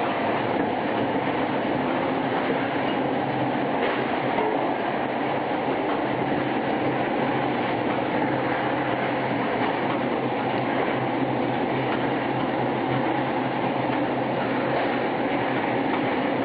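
Fish-processing line machinery running: an automatic fish-cutting machine and conveyors make a loud, steady mechanical noise with a constant low hum underneath.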